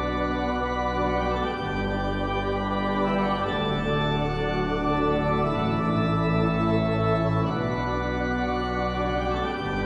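Ambient instrumental music led by sustained organ-like keyboard chords over deep held bass notes that change every couple of seconds.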